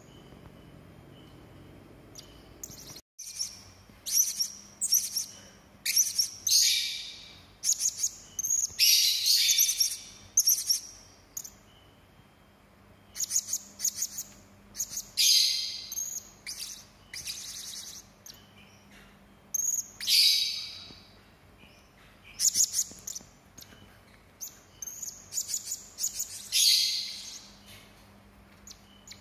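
Serindit (hanging parrot) calling in sharp, harsh, high-pitched bursts: quick chattering strings of short notes and longer screechy notes, repeated every second or two with short pauses between.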